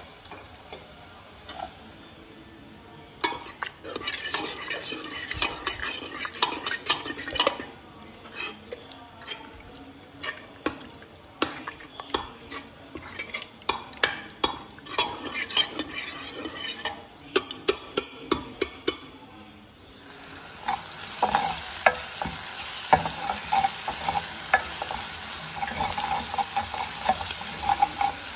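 A ladle stirs and scrapes through a pot of lentils and greens, clinking often against the pot. From about twenty seconds in, chopped shallots and mustard seeds sizzle steadily in hot oil in a small steel pan while a metal spoon stirs them with light clinks.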